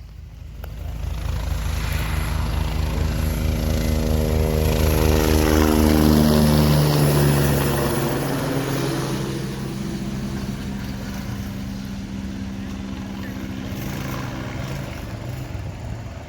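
Police helicopter taking off and flying past: the rotor beat and turbine tones grow louder, peak about six seconds in, and drop in pitch as it passes. It then goes on as a steadier, quieter drone.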